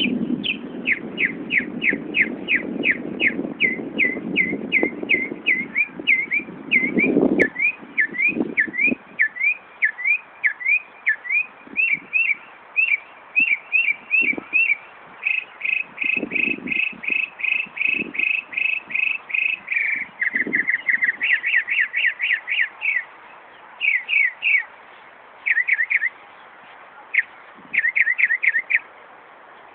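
Northern mockingbird mimicking a car alarm: it runs through repeated whistled phrases, first down-slurred notes about three a second, then rising-and-falling notes, then a run of rapid even beeps, then lower, faster warbling phrases in short bursts with pauses. Wind rumbles on the microphone for the first several seconds.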